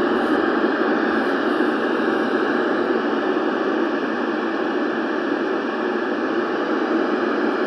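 Steady radio static hiss, starting and cutting off abruptly, in place of the weather radio broadcast.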